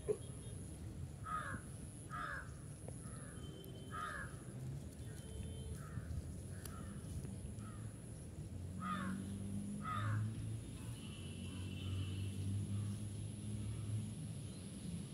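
A crow cawing: a string of short, harsh, falling caws about a second apart, with a low steady hum underneath that swells from about nine seconds in.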